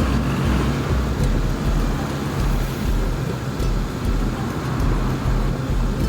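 Samurai 155i scooter under way, its engine running steadily under heavy wind rush and buffeting on the microphone.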